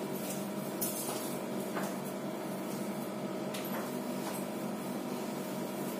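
Steady background hum with a few faint, brief rustles of a cloth suit being held up and handled.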